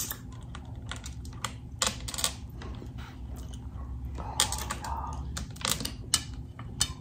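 Close-miked eating: irregular wet mouth clicks and smacks of chewing, a few each second.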